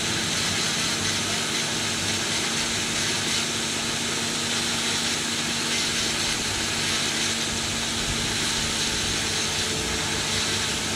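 Jeweler's flex-shaft rotary tool running steadily, its handpiece working a ring as it is refinished and polished: an even, continuous motor hum and hiss.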